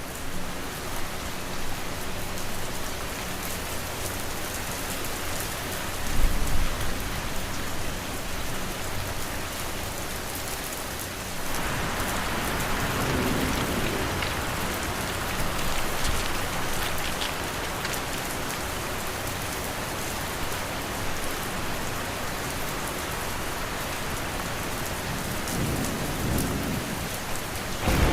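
Steady rain noise from a mixed rain, fan and wind ambience track. A low rumble comes about six seconds in and again near the end, and the hiss grows brighter about twelve seconds in.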